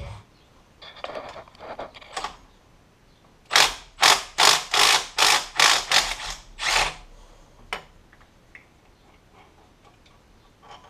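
Hand ratchet wrench being worked back and forth on a bolt at the engine's cam sprocket, about eight quick ratcheting strokes in a row, roughly two to three a second, with a few fainter clicks before them.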